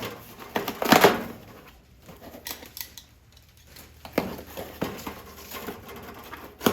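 A shipping package being opened by hand: irregular rustling of packaging with sharp clicks and knocks, loudest about a second in, quieter in the middle, then busier again with a sharp knock near the end.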